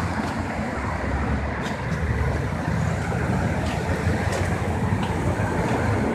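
City street ambience: a steady low rumble of road traffic, with a few faint ticks.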